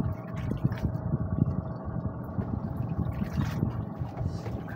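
Small outrigger boat's engine running steadily, over a choppy low rumble.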